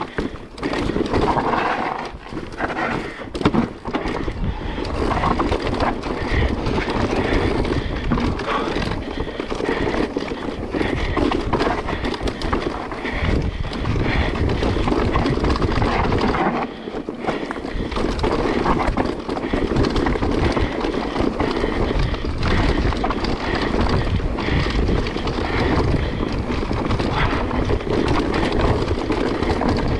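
Mountain bike riding fast down a rough trail: wind rushing over the camera microphone, tyres on dirt, and the bike rattling and knocking over bumps.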